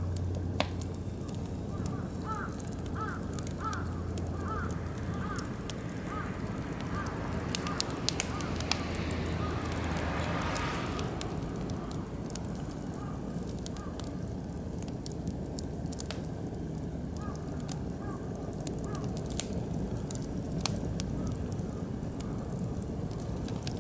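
Wood fire of oak and beech crackling, with sharp pops throughout. Birds call in short repeated series in the background, most in the first few seconds.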